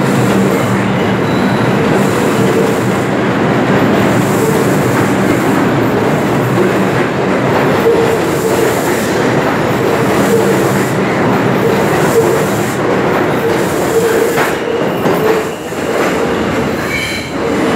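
New York City subway train running, heard from inside the car: a loud, steady noise of wheels on the rails and the rattling car body, with faint steady tones underneath.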